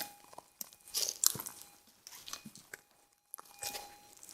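Minelab SDC 2300 metal detector's threshold tone through its built-in speaker: a thin steady hum that drops out and comes back partway through. The owner takes this unsettled threshold, which sounds though no target is there, for a possible fault. Sharp crunching and clicking noises sound over it, loudest about a second in.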